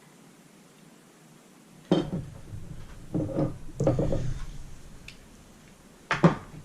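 SKS rifle's metal receiver and barrel knocking and clinking against its wooden stock as they are lifted out and set down: a sharp knock about two seconds in, a run of clunks and clinks in the middle, and another sharp knock near the end.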